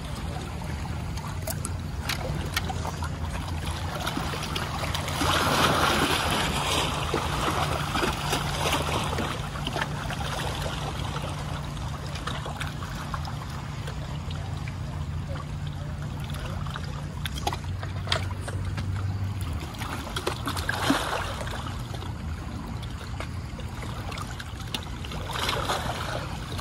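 Motorboat engine running with a steady low drone, its pitch shifting slightly a couple of times, over the wash and lapping of water.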